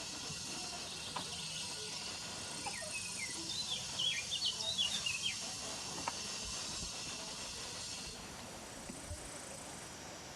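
A bird gives a quick run of short, high chirps a few seconds in, over a steady high-pitched insect buzz that fades a little near the end.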